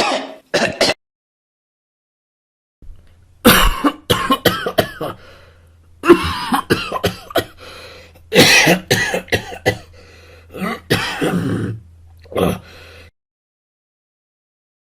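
A person coughing and clearing the throat: two short coughs at the start, then after a pause a long run of repeated harsh coughs over a faint low hum. The coughing stops about two seconds before the end.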